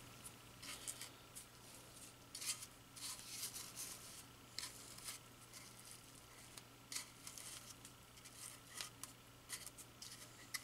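Faint scratching and scattered light clicks of a small metal pick picking and scraping wound-up hair and string off a vacuum's plastic brush roll.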